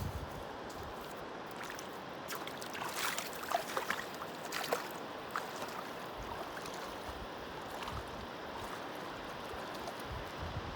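Mountain river water running steadily, with a cluster of short splashes between about two and five seconds in.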